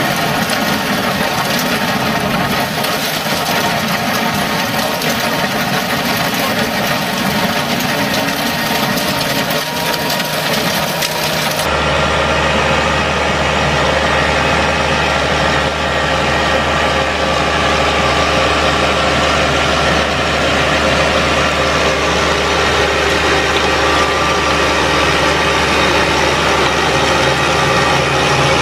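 Engine of a Bobcat 864 compact track loader running under work. About twelve seconds in it gives way to a large tractor's engine running steadily with a low hum as it pulls a field roller.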